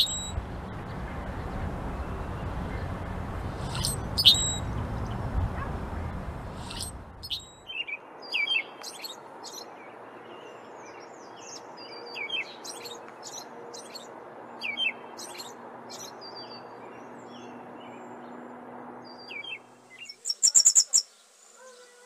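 Songbirds: a few sharp, high calls from a black blackbird over a low wind rumble for the first seven or so seconds, then an American robin singing a series of short whistled phrases, and a quick, very high trill of clicks near the end.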